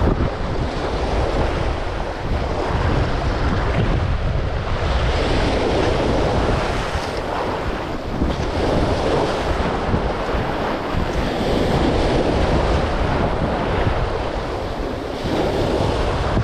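Wind buffeting the microphone, rising and easing, over the wash of sea waves.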